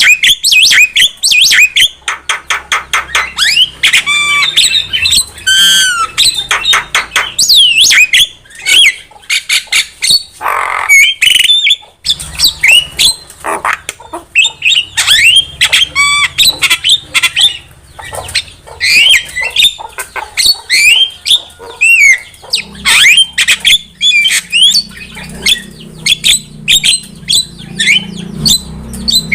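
Javan myna (jalak kebo) singing without pause: a fast, loud jumble of squawks and chatter, rapid rattles, and many short rising and falling whistles.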